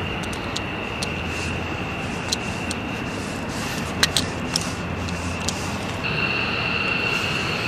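F-15 fighter jet's twin engines idling: a steady high whine over a broad rumble. The whine grows louder about six seconds in. A few faint clicks are scattered through.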